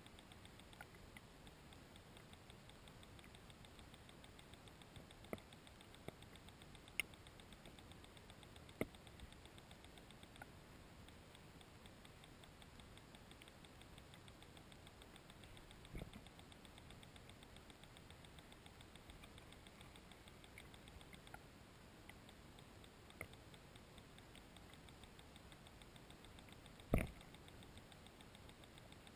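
Near-silent underwater hush picked up by a GoPro in its waterproof housing, broken by a few faint scattered clicks, a low knock about halfway through and a louder knock near the end.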